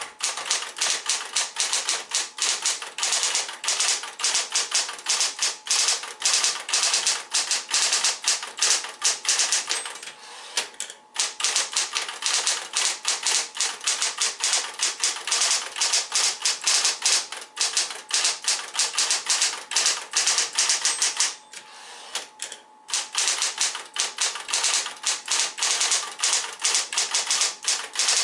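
Smith-Corona Coronet Electric 12 electric typewriter typing in rapid runs of keystrokes over the steady hum of its motor. The typing breaks off briefly about eleven seconds in and again about twenty-two seconds in, leaving only the motor hum.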